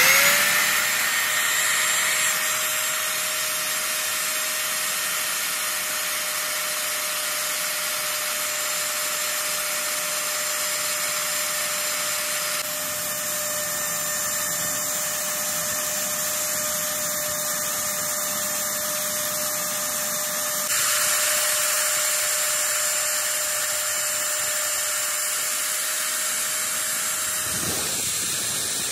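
Bench drill press motor speeding up at the start and then running steadily while a drill bit bores small holes into a truck engine piston near its ring grooves. A steady high whine sits over the running, and the motor slows near the end.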